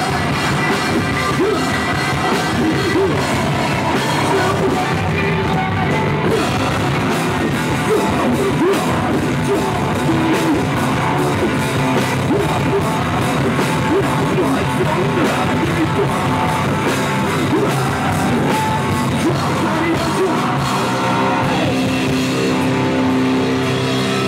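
A rock band playing live and loud: a vocalist screaming into the microphone over electric guitars and a pounding drum kit.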